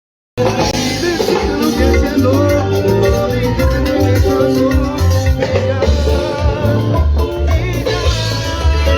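Latin dance music with a pulsing bass line, percussion and melody lines, starting abruptly a moment in.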